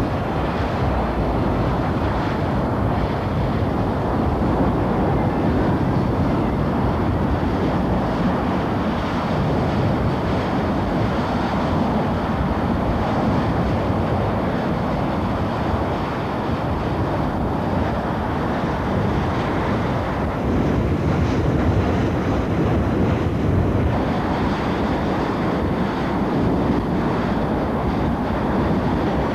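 Steady rushing roar of a blowing-out oil-field well, the jet from the wellhead mixed with the spray of high-volume water cannons cooling it.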